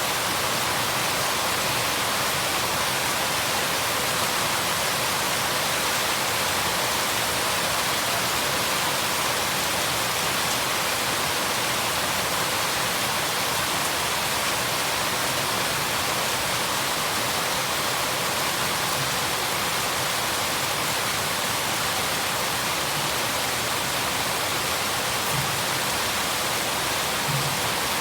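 Steady rain falling, an even hiss with no let-up, with a couple of faint knocks near the end.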